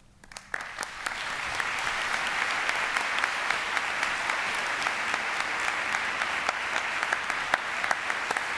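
Audience applauding: a few scattered claps, then within about a second steady, dense applause from many people.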